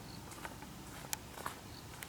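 A few light, sharp clicks and taps, the loudest a little past a second in.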